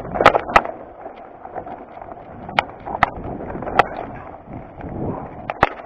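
Mountain bike descending a loose, rocky trail: tyres grinding and crunching over stones, with many irregular sharp knocks and rattles from the bike as it hits rocks.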